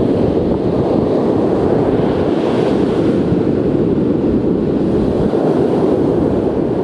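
Surf breaking and washing up a sandy beach, with wind blowing on the microphone: a steady, loud noise.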